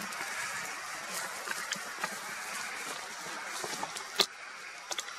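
A steady noisy hiss with a handful of short sharp clicks and knocks; the loudest click comes about four seconds in.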